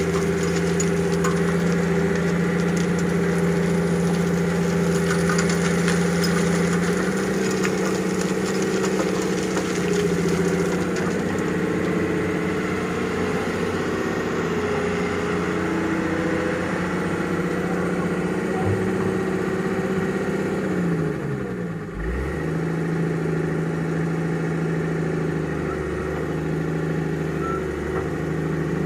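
Excavator's diesel engine running steadily while it works, with a brief dip in engine pitch that recovers about three-quarters of the way through.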